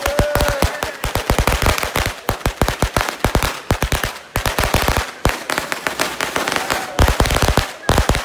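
A string of firecrackers going off on the pavement: rapid, uneven bangs, several a second, with a brief lull about four seconds in.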